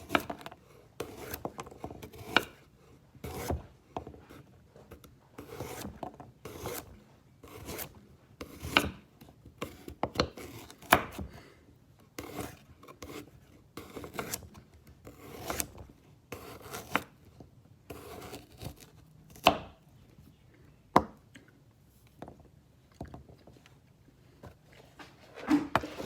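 Carrots crunching: irregular crisp cracks a few times a second, with scraping and rubbing between them.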